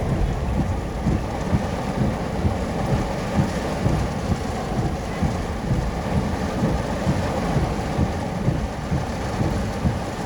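Wind buffeting the microphone: a continuous gusty rumble.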